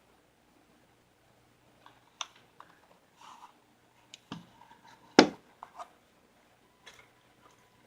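Clicks and knocks of a Powerline 340 spring BB pistol being handled, irregular and close up, with one louder sharp knock about five seconds in.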